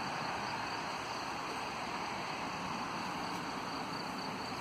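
Steady, even outdoor rushing noise with no separate events or voices.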